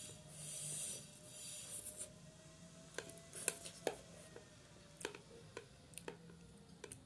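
Close-up eating sounds of spicy instant noodles: two short slurps near the start, then chewing broken by a string of small sharp clicks.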